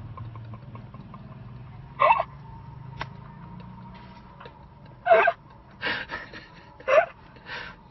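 Several short bursts of stifled laughter and gasps from people inside the car, over a low, steady engine hum.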